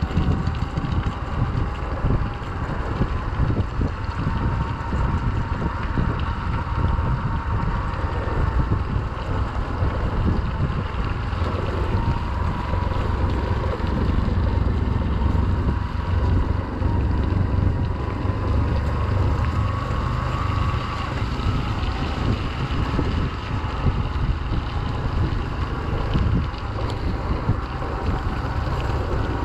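Motorcycle engine running steadily while ridden, heavily masked by wind buffeting the microphone.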